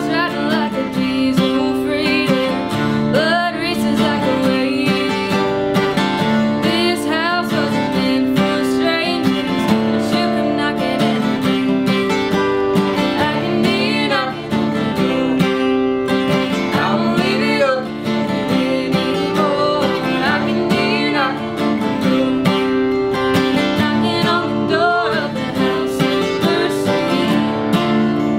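Two acoustic guitars strummed together while a woman sings.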